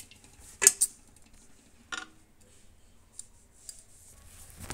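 Sharp metal clinks of kitchen vessels at an aluminium pressure cooker as soaked pulses are tipped into it: a loud double clink just under a second in, another about two seconds in, then a few faint ticks.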